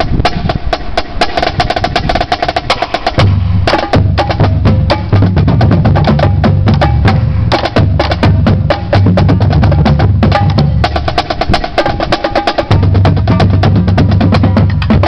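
Marching drumline playing a cadence: rapid, loud snare drum strokes throughout, with deep bass drums joining about three seconds in and dropping out briefly a few times.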